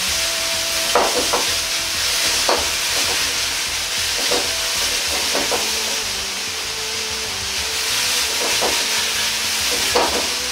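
Diced chicken and potato cubes sizzling in a hot wok as they stir-fry and the potatoes take on light browning. A ladle scrapes through the food and knocks against the wok now and then.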